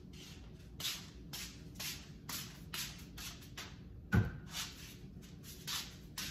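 Containers being handled and set on a pantry shelf: a run of short scraping and rustling strokes, about two a second, with one louder thud about four seconds in.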